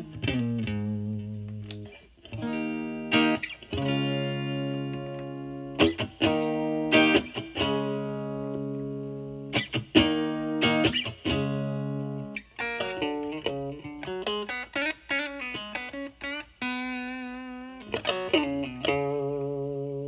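Fender Stratocaster electric guitar played through a DOD FX102 Mystic Blues Overdrive pedal switched on with its drive at zero, into a Marshall Valvestate amp's clean channel. It rings out strummed chords, then busier single-note phrases with vibrato from about twelve seconds in.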